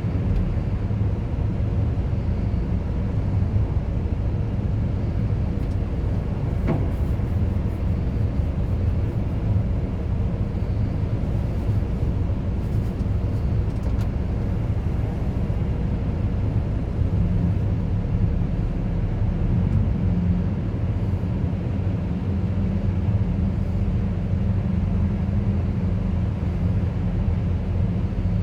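Diesel engine of a Bobcat rotary telehandler running in a steady low drone, with one short click about seven seconds in.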